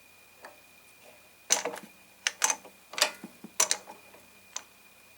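Sharp metallic clicks and knocks, about seven spread over three seconds, from handling the parts of a 7x10 mini lathe, over a faint steady high whine.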